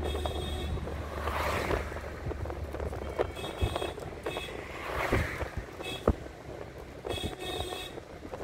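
Road and engine noise of a moving car heard from inside the cabin, with two swelling whooshes of passing traffic and a few short high chirps and clicks.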